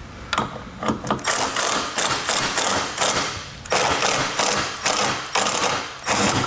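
Cordless Milwaukee impact driver with a 10 mm socket hammering in several short runs with brief pauses, backing out bolts.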